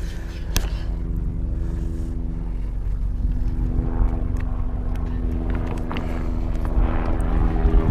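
Boat engine running steadily: an even, pitched hum over a low rumble, with a few faint clicks.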